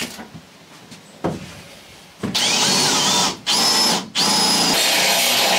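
A few light knocks, then about two seconds in a power drill starts and runs in three runs with brief stops between them, its pitch sliding up and down as the load changes.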